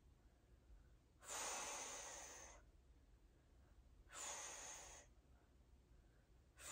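A woman breathing out hard from exertion during hip bridges: three breaths, each about a second long and two to three seconds apart, the last starting near the end.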